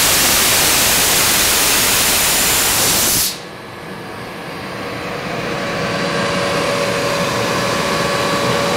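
Compressed air hissing loudly out of the open drain valve on the air compressor's receiver tank, cut off suddenly a little over three seconds in as the valve is shut. Then the Atlas Copco GX11 15 hp rotary screw compressor running, a steady hum with a thin whine, slowly growing louder.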